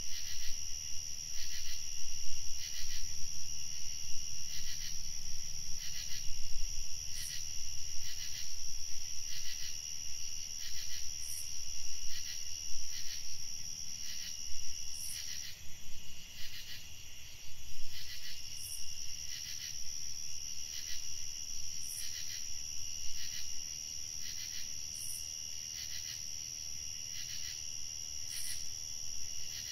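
Evening chorus of crickets and other night insects: a steady high trill, with evenly repeated chirps about one and a half times a second over it.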